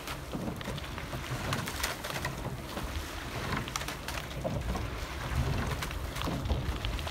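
Oars of a rowing eight splashing in the water as the crew rows past, with scattered short knocks and splashes over a steady low rumble.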